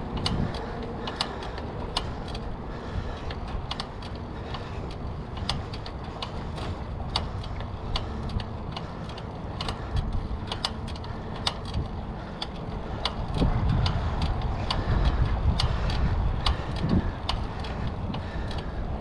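A rental bicycle rolling along a concrete path: its front rack and frame rattle and click irregularly, a few times a second, over a low rumble. The rumble grows louder about two-thirds of the way through.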